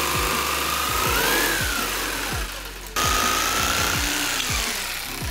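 Jigsaw cutting a round hole in a siding board, its motor whine rising and falling as the blade works through the board. The sound breaks off about three seconds in and starts again. Background music with a steady beat plays underneath.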